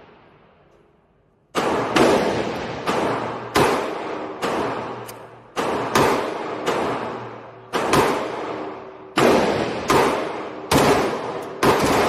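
Beretta 93R 9 mm machine pistol firing a rapid string of shots, about one to two a second and some in quick pairs, beginning about a second and a half in. Each shot echoes and rings out between the concrete walls of an indoor range.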